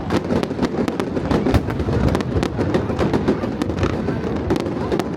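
Aerial fireworks going off in quick succession: many sharp cracks and bangs a second over a continuous low rumble of booms.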